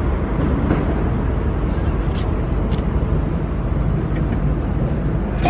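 Steady low rumble of city street traffic, with two short sharp clicks a little after two seconds in, about half a second apart.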